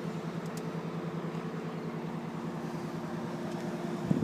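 Aerial ladder truck's engine and hydraulic system running at a steady, unchanging pitch. There is a brief louder sound about four seconds in.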